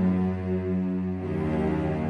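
Background music of low, sustained notes, shifting to new notes a little over a second in.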